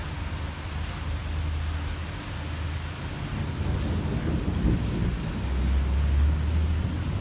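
Steady rain falling in a thunderstorm, with a deep low rumble underneath that swells about six seconds in.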